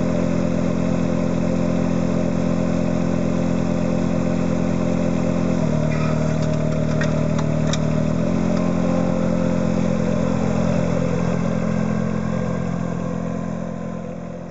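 Engine of a ride-on weed-brush machine running steadily. Midway the engine note shifts for about two and a half seconds, with a few clicks, as the brush head is raised, then the sound fades out near the end.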